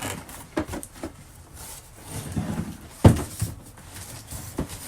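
Handling of a cardboard vacuum-cleaner box being opened: scattered knocks and rustling, with one sharp thump about three seconds in.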